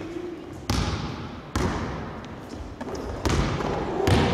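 A basketball bouncing on a wooden gym floor, four dribbles with a pause between the second and third, each ringing out in the echo of a large hall.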